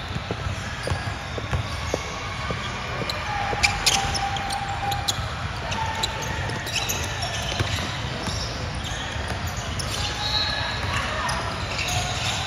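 Basketball bouncing on a hard indoor court, with a run of bounces in the first two seconds and louder sharp knocks about four seconds in, over the echoing noise of a game in a large gym.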